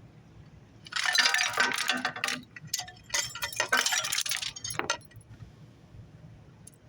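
Failed T911 thrust bearing rattling and clinking metallically in two rough bursts, each about a second and a half long: the sound of a worn-out, broken-up bearing.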